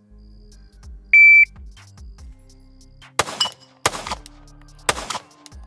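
A shot timer gives one loud, high start beep about a second in. About two seconds later a 9mm Glock pistol fires three shots, roughly three-quarters of a second to a second apart.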